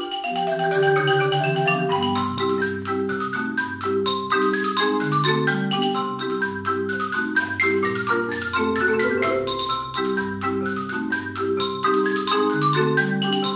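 A mallet percussion quartet of marimbas and other keyboard percussion playing a fast, rhythmic piece live: quick repeated struck notes and chords over a low bass line.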